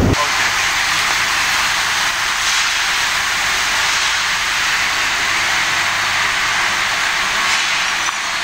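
A steady, even hiss of workshop machinery noise that cuts in abruptly and holds level, with no tone or rhythm in it.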